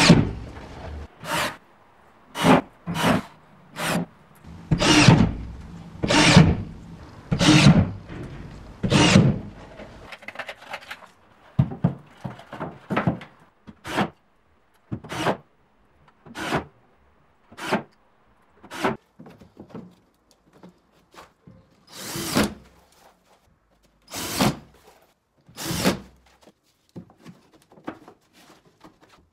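Cordless drill/driver driving drywall screws through plasterboard into metal framing profiles, in a long series of short bursts about half a second each. The bursts are loudest and closest together in the first ten seconds.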